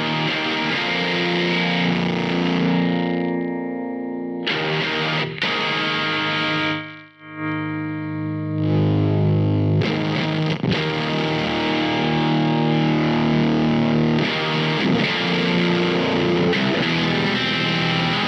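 Electric guitar played through a Weird Noise Effects fuzz/overdrive pedal, ringing out sustained distorted chords. The sound drops out briefly about seven seconds in, then new chords are strummed and left to ring.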